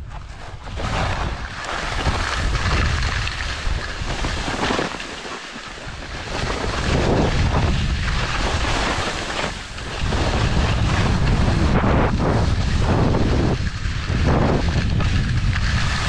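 Wind buffeting the microphone of a camera carried by a skier going downhill, a heavy rumbling rush that surges and eases every few seconds, mixed with the hiss and scrape of skis over snow.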